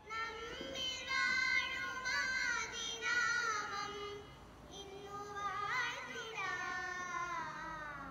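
Young girls singing a song together into microphones, with a brief lull about halfway through.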